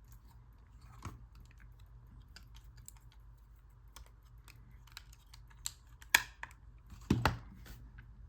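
Light plastic clicks and taps of a LEGO model being handled, with two louder clacks about six and seven seconds in, over a faint steady low hum.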